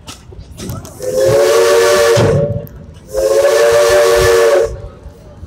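Steam locomotive's three-chime whistle blowing two long blasts, each about a second and a half, a chord with steam hiss over it, heard from a passenger coach behind the engine.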